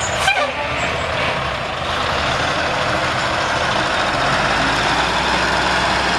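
Diesel engine of a Ford L9000 dump truck, a Cummins LTA10 inline-six, running steadily, with a short falling squeal just after the start.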